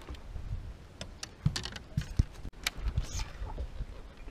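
Irregular clicks and light knocks from fishing tackle being handled in a boat: a rod and reel worked over the deck, with a low rumble underneath.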